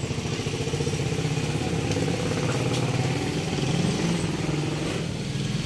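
An engine idling steadily, with a slight waver in its pitch.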